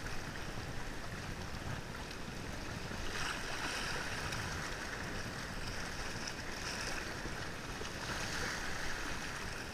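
Small waves washing in and out over rocks at the water's edge, a steady wash that swells about three seconds in and again near the end.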